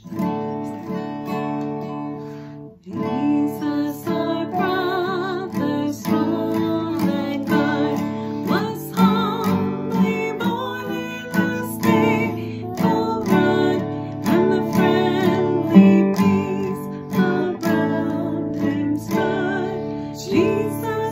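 A woman and a young girl singing a song to a strummed acoustic guitar. The guitar starts abruptly and breaks off briefly just before three seconds in, then the song carries on.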